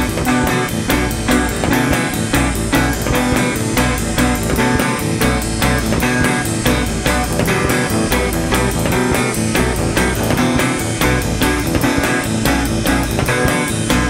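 Rock music: guitar and bass guitar over a steady, fast beat.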